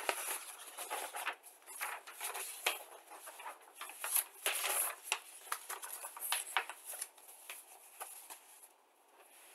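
A model kit's paper instruction sheet rustling and crinkling as it is handled and turned, with light clicks and taps; it stops about a second before the end.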